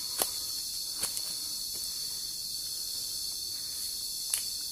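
Steady high-pitched drone of insects in the jungle, with three short sharp clicks: one near the start, one about a second in and one near the end.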